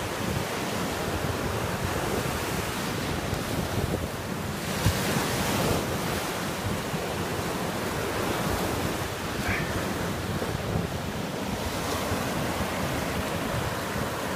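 Small surf breaking and washing up the sand at the water's edge, a steady hiss that swells loudest about five seconds in, with wind buffeting the microphone.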